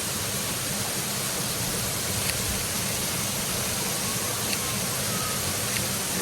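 Waterfall rushing steadily, an even noise with no change, plus a few faint ticks.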